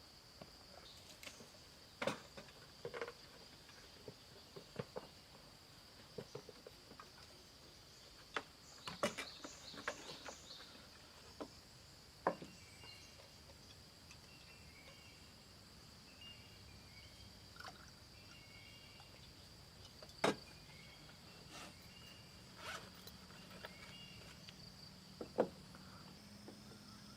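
Steady high-pitched drone of insects, with scattered sharp clicks and knocks, the loudest about twenty seconds in.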